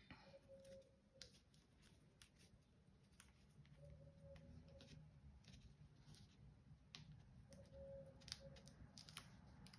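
Near silence, with faint scattered clicks and rustles of hands handling double-sided tape, a ribbon and card stock.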